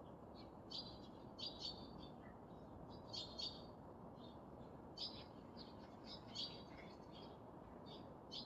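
Faint chirping of small birds: short high notes in quick clusters every second or so, over a steady low hiss.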